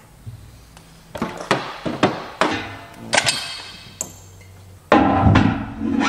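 Metal tools and parts clinking and knocking as they are handled in a truck's toolbox, in a run of separate strikes, a few with a short metallic ring. Near the end a louder, denser clatter of metal.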